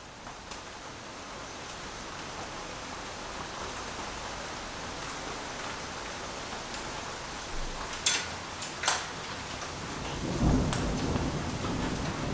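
Steady rain, fading in at the start, with a few sharp clicks about eight and nine seconds in and a low rumble from about ten seconds on.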